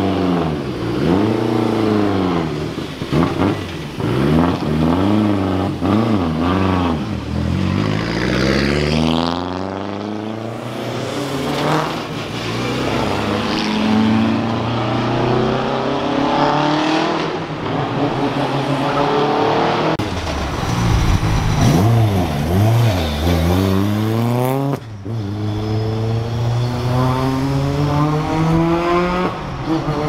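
Rally car engines blipping the throttle in quick rises and falls at low speed, then cars accelerating past with the engine pitch climbing and dropping through the gears. The sound breaks off suddenly about 25 seconds in and another car accelerates away.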